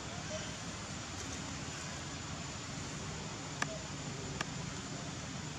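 Steady outdoor background noise, an even hiss with no clear source, broken by two sharp clicks a little under a second apart near the middle.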